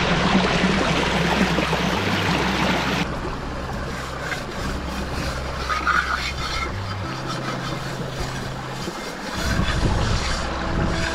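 Small stream water rushing and splashing over rocks, loud and close at first, then cutting about three seconds in to a softer, steady flowing sound.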